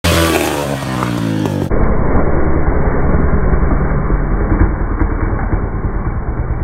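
Dirt bike engine revving, its pitch falling and rising, for about the first second and a half; then the sound turns abruptly muffled into a dull low rumble of engine and wind buffeting on the microphone.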